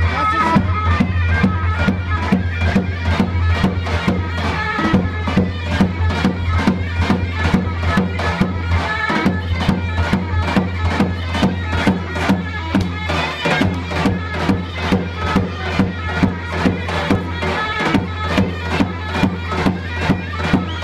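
Turkish folk dance music: a reedy wind-instrument melody over a steady, even drum beat.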